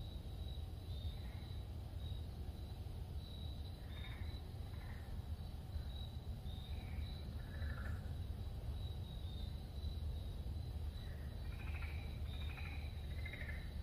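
Night-time swamp chorus: a steady, pulsing high-pitched trill, with short, lower chirps now and then and several close together near the end, over a low steady rumble.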